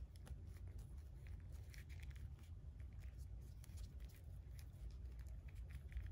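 Faint handling noise of a plastic action figure: fingers rubbing against it and small scattered clicks as its plastic hands are pushed into its loose plastic jeans pockets, over a low steady hum.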